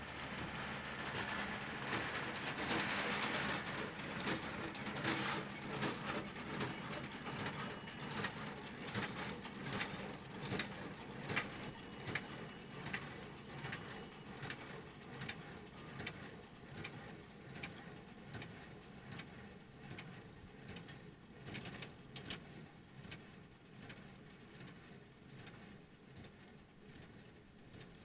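John Deere tractor running steadily while pulling a small square baler, the baler's plunger knocking at an even rhythm of a little over one stroke a second as it packs hay into bales. The sound fades steadily as the rig moves away.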